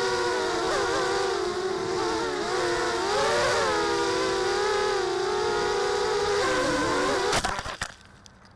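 Mini quadcopter's brushless motors (Tiger 1806 2300KV) spinning 5x3 props, a steady buzzing whine that wavers up and down in pitch with the throttle. About seven seconds in it crashes: a few sharp knocks, and the motor whine cuts out.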